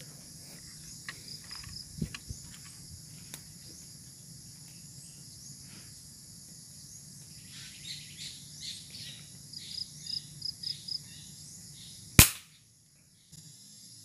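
Uklik air rifle fires a single sharp shot about twelve seconds in, the loudest sound by far. Before it, insects drone steadily and birds chirp in quick runs of short notes.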